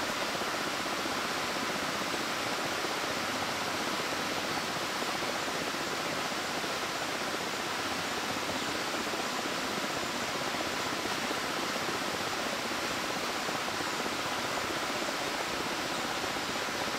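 Steady rushing of whitewater river rapids, an even roar of churning water with no breaks.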